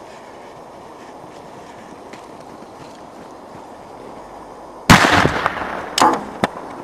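A pyrotechnic charge inside a printer goes off with one sudden loud bang about five seconds in, blowing the printer apart. A crackling tail follows, then a second, smaller bang about a second later and a short sharp crack just after. Before the bang there is only steady low background noise.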